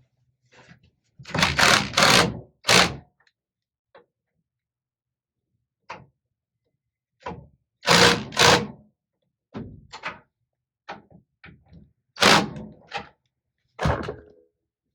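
Small cordless impact driver run in short bursts, with a few bursts clustered about a second in, around eight seconds in and again near the end, as it drives the tailgate hinge bolts home.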